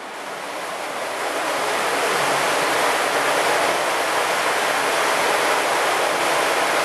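Water rushing steadily through a brick sewer channel, growing louder over the first two seconds and then holding steady.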